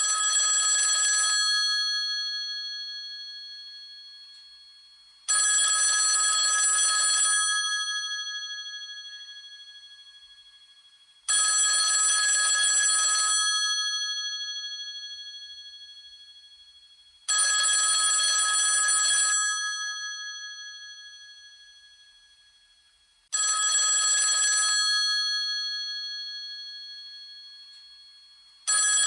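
Old telephone's bell ringing in a repeating cadence: about two seconds of rapid ringing every six seconds, each ring fading slowly before the next. Five full rings, with a sixth starting near the end.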